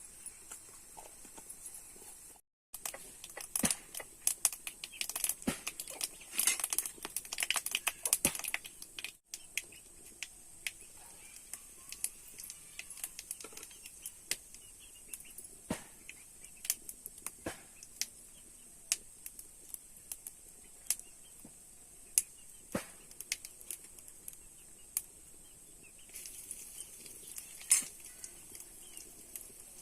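Scattered clicks, taps and rustling from hands-on food preparation, busiest in the first third, with two brief dropouts in the sound.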